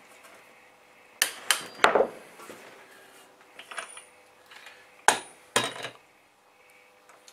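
Sharp metallic clicks and clanks from a torque wrench and flange-holding tool while the rear drive flange nut of a Nissan Patrol TX12a transfer case is tightened in steps: three about a second in, then two or three more about five seconds in.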